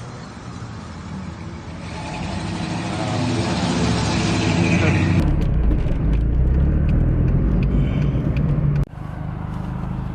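Car engine and road noise rumbling from inside a car, much heavier and lower after an abrupt change about five seconds in.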